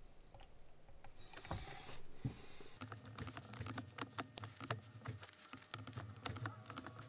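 Faint sound at a workbench: a short hiss about a second in, then from a little before halfway a quick, irregular run of light clicks and taps, as of small hard parts being handled.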